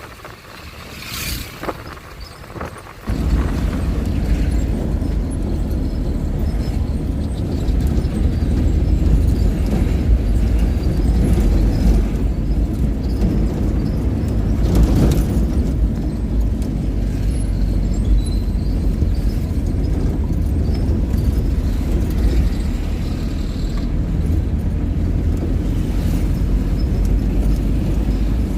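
Steady low rumble of a road vehicle under way, which starts suddenly about three seconds in and stays loud throughout.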